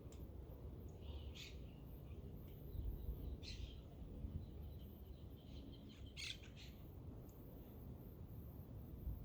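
A few short bird calls, each a brief chirp about two seconds apart, over a steady low rumble.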